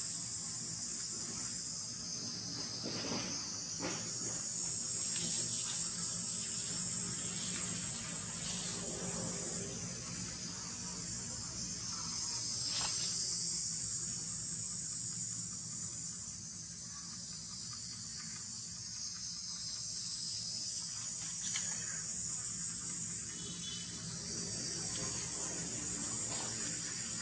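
Steady high-pitched drone of an insect chorus, with a few brief faint sounds now and then.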